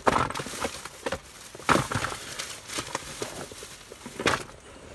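Plastic shopping bags and plastic parts packaging being rummaged through and handled: irregular crinkling and rustling with a few sharp clicks and knocks, the loudest just after the start, about two seconds in and near the end.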